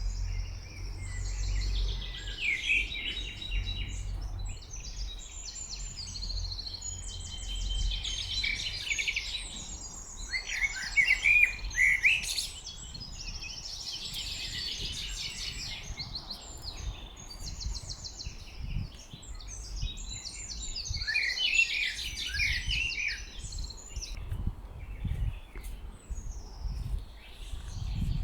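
Several songbirds singing at once, in overlapping phrases of quick trills and chirps, loudest about eleven seconds in, over a low steady rumble.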